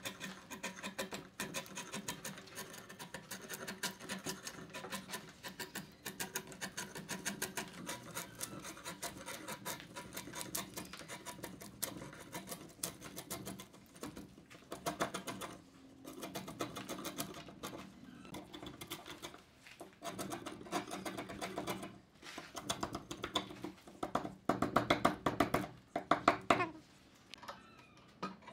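Bark being scraped off a timber slab with a wide flat-bladed hand tool: rapid runs of scratchy strokes, with brief pauses now and then.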